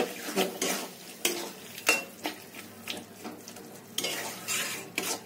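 Spatula stirring and scraping sliced onions and tomatoes against the side of a kadai, in repeated strokes about twice a second, over the sizzle of the masala frying with a little milk just added.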